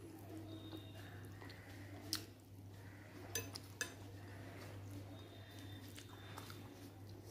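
Fingers mixing rice and curry on a glass plate, with a few sharp clicks against the glass about two seconds in and twice more about a second later, and soft chewing, over a steady low hum.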